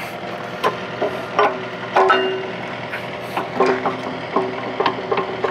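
Steel pivot pin being worked into an excavator bucket's bore: a string of short metal clinks and knocks at uneven intervals, some ringing briefly, over the excavator's engine idling.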